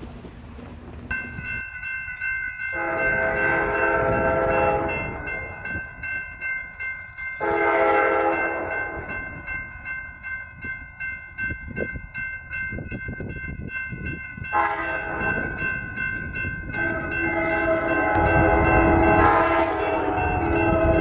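Amtrak passenger locomotive's air horn blowing several long chord blasts. Between blasts come the rhythmic clicks of rail wheels rolling over joints.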